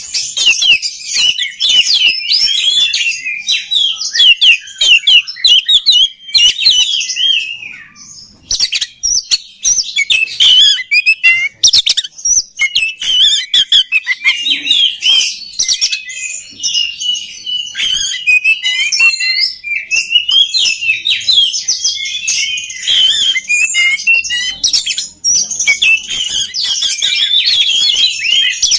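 Oriental magpie-robin (kacer) singing a fast, continuous stream of high chirps, trills and whistles, broken by a few short pauses.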